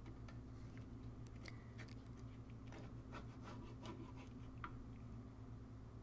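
Faint scraping and light clicks of a spatula cutting through a cottage pie's potato topping and against the bottom of a cast-iron skillet, a scatter of small scrapes mostly between one and five seconds in, over a low steady hum.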